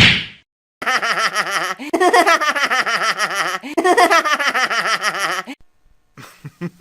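A person laughing as a sound effect: a rapid, pulsing ha-ha-ha in three runs lasting about four and a half seconds, followed near the end by a few short, sharp clicks.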